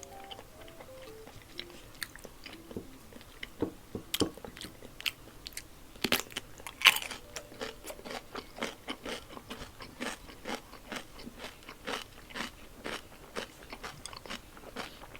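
Close-miked eating: crisp bites and crunches, the loudest about seven seconds in, then steady rhythmic chewing. Faint background music underneath.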